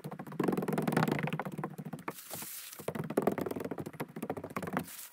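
Crinkling and rustling of the peeled-off plastic backing film from self-adhering roof underlayment, in two long stretches, with footsteps on the roof.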